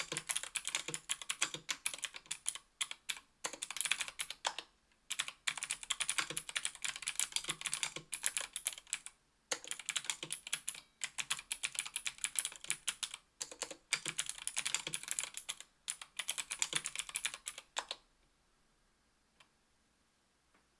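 Typing on a mechanical keyboard with Gateron Blue Ink clicky switches (60 g, stock) in an aluminium Tofu 60% case with an aluminium plate and GMK keycaps. Rapid runs of keystrokes come with brief pauses and stop about three-quarters of the way in.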